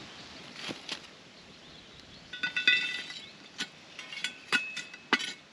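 A utensil clinking against a glass: a run of sharp taps about two seconds in, each leaving a short high ring, and more scattered ringing taps in the last two seconds.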